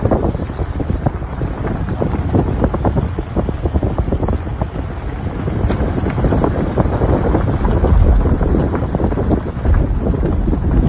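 Wind buffeting the microphone: a loud, uneven rumble with crackles.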